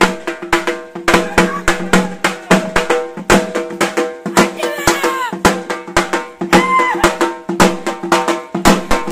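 Loud, rapid drumming from drums played in a street procession, over a steady held tone, with a crowd shouting a couple of times around the middle.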